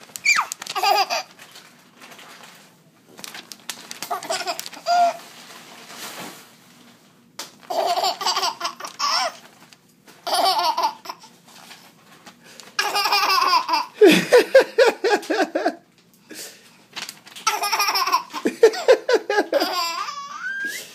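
Baby girl laughing in about six bouts of quick, pulsed belly laughs separated by short pauses. The last bout ends on a rising note.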